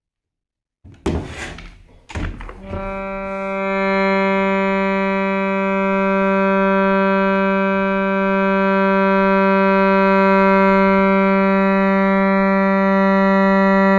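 A couple of knocks, then from about three seconds in a shruti box sounds one steady, unbroken reed drone that holds. The reed sounds clean after its tongue was straightened to cure a buzz.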